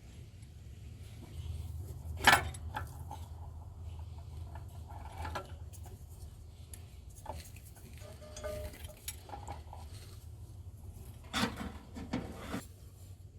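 Hand tools and metal engine parts clinking and knocking irregularly as a distributor is unbolted and pulled from the engine, with one sharp metallic clank about two seconds in the loudest, and a cluster of knocks near the end.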